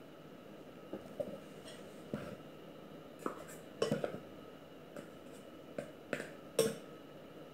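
Irregular sharp clicks and clinks of metal kitchen utensils: a small metal flour sieve tapped over a stainless steel mixing bowl, then a metal measuring cup knocking and scraping in a glass bowl as flour is scooped. About ten taps, the loudest in the second half.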